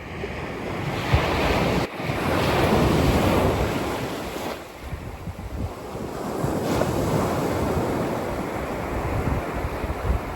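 Atlantic sea waves washing in, with wind buffeting the microphone; the surf noise swells and eases several times.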